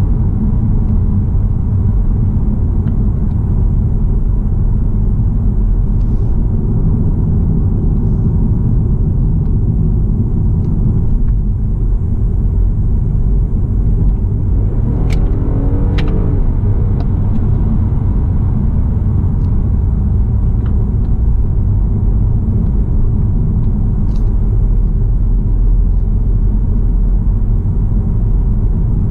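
Steady low road and tyre rumble inside the cabin of a moving MINI Countryman plug-in hybrid, with two sharp clicks about halfway through.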